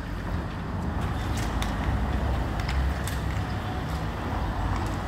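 Outdoor street noise: a steady low rumble, swelling a little about halfway through, with a few faint clicks.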